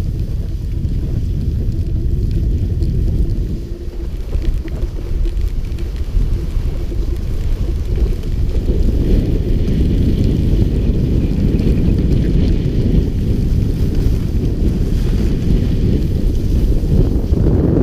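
Wind buffeting an action camera's microphone while skiing downhill, a steady low rumble, with skis sliding over the snow; it grows louder about halfway through.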